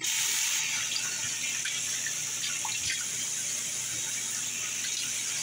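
Bathroom sink tap turned on, water running steadily into the basin with a few small splashes.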